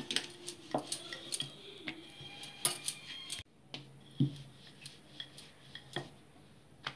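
Wooden rolling pin rolling dough out on a floured stone countertop: scattered clicks and knocks as the pin is pushed back and forth and set against the counter, quieter after about halfway.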